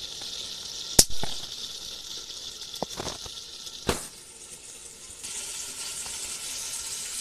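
Chicken cooking in a pot over a straw-and-wood fire on a clay stove: a steady sizzling hiss, with sharp clicks about a second in and just before four seconds, and the hiss a little louder about five seconds in.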